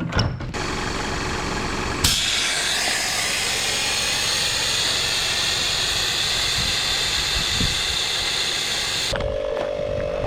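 A vehicle engine running under a loud, steady hiss that starts suddenly about two seconds in and cuts off abruptly near the end, leaving a steady pitched hum.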